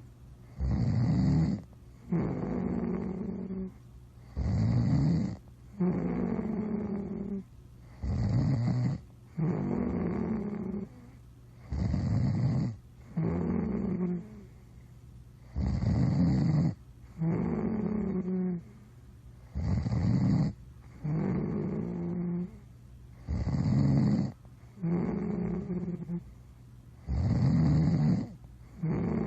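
Steady rhythmic snoring, about one breath every four seconds: each a short, loud rattling snore followed by a longer, quieter one with a steady pitch.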